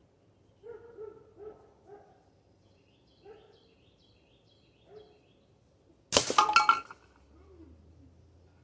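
A break-barrel spring-piston air rifle fires one shot about six seconds in: a sudden sharp report lasting under a second, by far the loudest sound. A few faint short sounds come before it.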